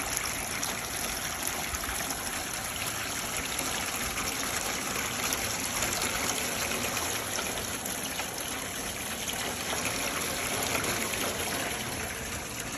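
Water from a garden hose running off a roof and splashing into a metal rain gutter: a steady, even rush of flowing water.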